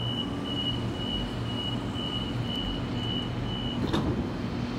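Door-closing warning beeps on a Sydney Trains Waratah electric train: a high tone repeating about twice a second, then a thump as the sliding doors shut about four seconds in, over the steady low hum of the stationary train.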